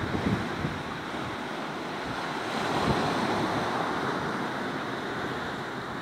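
Sea waves washing in and breaking along the shore, swelling to a louder wash around the middle. Wind buffets the microphone in gusts.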